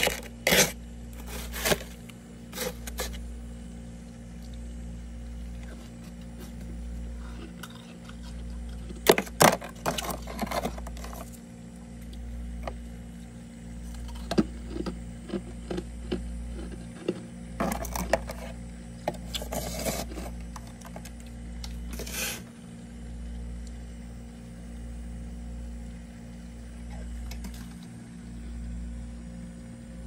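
Soft freezer frost being scraped by hand, crunching and crackling in several short bursts with pauses between, over a steady low hum.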